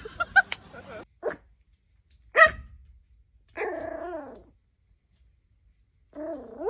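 Small long-haired puppy barking at its own reflection in a mirror: two short sharp barks, then two longer barks that fall in pitch.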